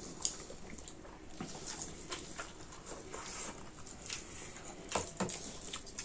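Close-up eating sounds during a meal: chewing and crunching, with scattered small clicks, and a couple of sharper clicks about five seconds in.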